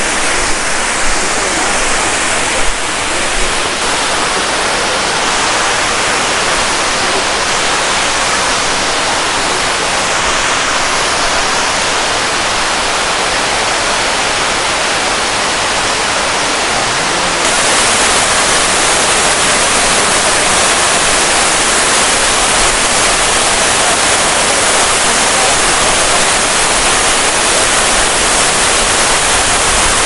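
Water cascading down the stepped rock ledges of Tirathgarh Falls: a steady, unbroken rush that gets a little louder and brighter a bit past halfway.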